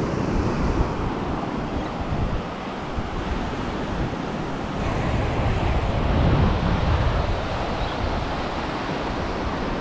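Ocean surf breaking on a beach, a steady rush of waves, with wind buffeting the microphone.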